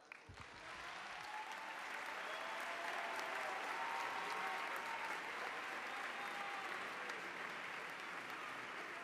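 A large crowd applauding, with a few voices calling out over the clapping. The applause swells over the first couple of seconds and then holds steady.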